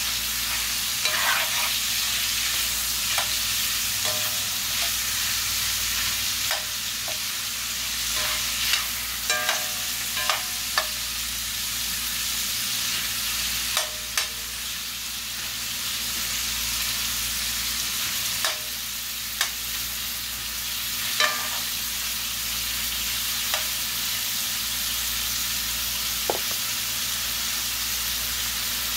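Pork chunks and sliced smoked sausage sizzling steadily as they brown in hot lard in a cast-iron pot. A metal spoon stirring them scrapes and clicks against the pot now and then, mostly in the first two-thirds.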